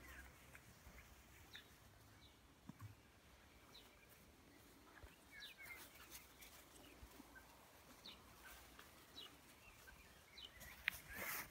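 Faint, scattered chirps of small birds over near silence, with a brief rustle and one sharp click near the end.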